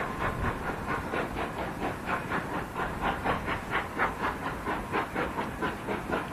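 Narrow-gauge steam train moving slowly, a steady rhythm of about four beats a second with hiss, typical of a steam locomotive's exhaust beats as it works the train.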